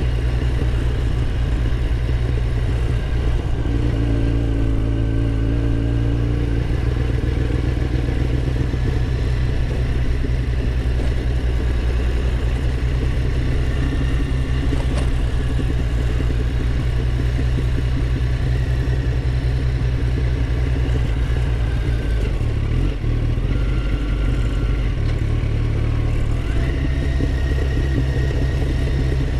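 Yamaha FZ1's inline-four engine running steadily as the motorcycle rides along at low speed, its pitch shifting a few times near the end.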